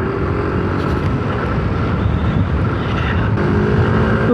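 Yamaha Aerox 155 scooter's engine running steadily under load while climbing a steep grade, with wind rumbling on the microphone.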